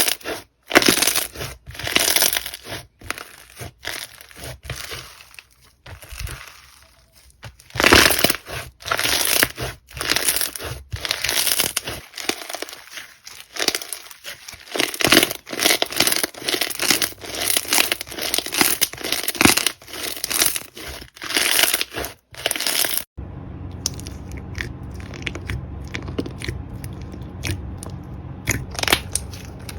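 Slime being squeezed and worked by hand, giving a quick, irregular run of short noisy pops and crackles. About three-quarters of the way in the sound changes abruptly to quieter, sparser crackles over a steady low hum.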